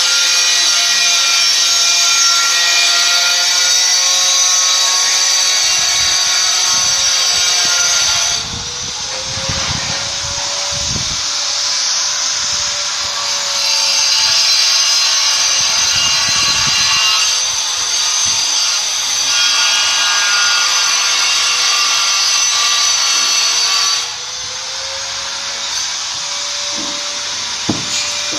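Corded electric power tool cutting ceramic floor tiles, its motor whining steadily under load. About eight seconds in, and again near 24 seconds, the motor comes off the cut: the sound gets quieter and its pitch rises, then it goes back into the tile. A couple of light knocks come near the end.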